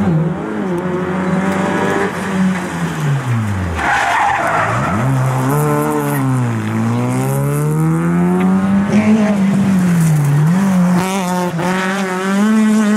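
Rally car engines revving hard through a tarmac corner. The engine note drops sharply as the car brakes and changes down, a short burst of tyre scrub comes about four seconds in, and the engine revs up and down again as it drives out. Near the end a second car is heard revving hard.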